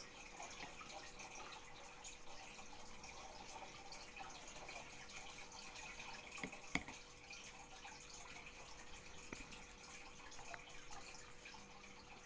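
Quiet room tone with a faint steady hum and scattered soft ticks, broken by one sharp click about seven seconds in.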